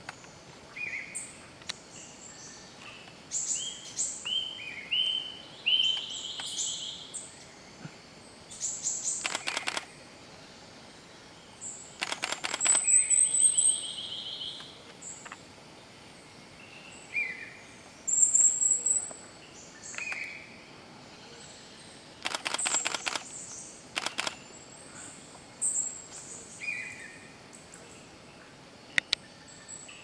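Birds calling: short high chirps, brief descending whistled notes and a quick run of rising notes, with several rattling bursts about a second long scattered through.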